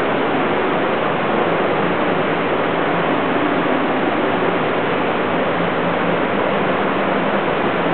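A steady, even rushing hiss at a constant loud level, with no distinct events.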